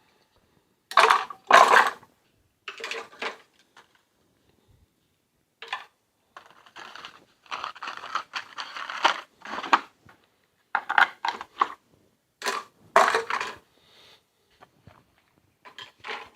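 Tools and other items being handled and moved about in a wooden toolbox, with irregular bursts of clattering and rustling.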